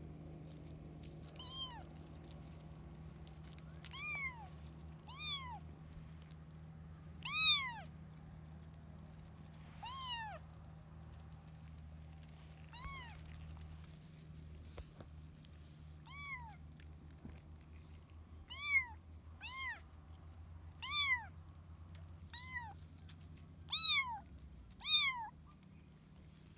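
A kitten meowing again and again: about a dozen short, high meows, each rising and then falling in pitch, a second or more apart, the loudest near the end.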